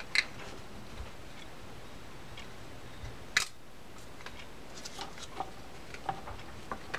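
Small clicks and taps from a Shimano Corsair 400 baitcasting reel being taken apart by hand as its back case is worked loose: a sharp click near the start, a louder one about three and a half seconds in, then a run of light ticks near the end.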